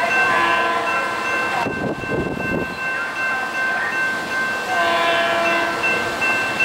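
Two blasts of a SEPTA Regional Rail electric multiple-unit train horn, the first near the start and the second about five seconds in, with a short low rumble between them. A railroad crossing bell rings steadily underneath.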